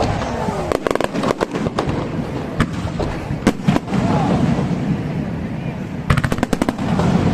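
Aerial fireworks shells bursting: a cluster of sharp bangs about a second in, a few single bangs in the middle, and a rapid crackling string of reports near the end, over a constant rumble and murmur of a crowd.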